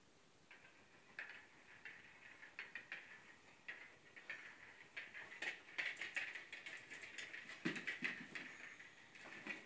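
Toy hamster in a plastic ball clicking and rattling as a corgi noses and pushes it about. The clicks are sparse at first and come thick and fast from about halfway through.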